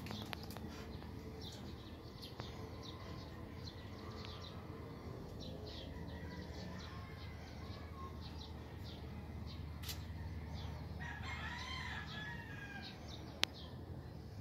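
Birds chirping in short repeated calls, with a rooster crowing once about eleven seconds in. A single sharp click comes shortly before the end.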